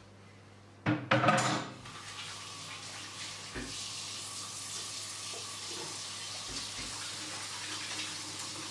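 A few clattering knocks about a second in as a wooden chopping board is set down in a kitchen sink, then a kitchen tap running steadily into the sink.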